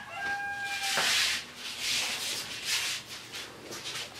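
Cloth rustling in several swells as a bedsheet is gathered and folded, after a rooster's crow trails off about a second in.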